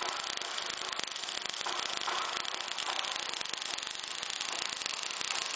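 MIG welding arc crackling and sizzling steadily as the wire-fed torch lays a bead on steel, throwing spatter.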